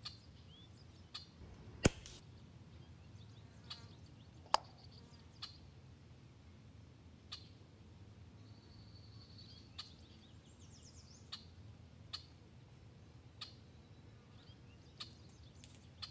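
Air rifle shot: a single sharp crack about two seconds in, followed by a second sharp click a couple of seconds later. Faint bird chirps and scattered small ticks sound over a quiet outdoor background.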